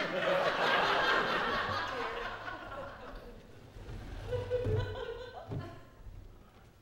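Audience laughing in a theatre, loudest over the first couple of seconds and then fading away.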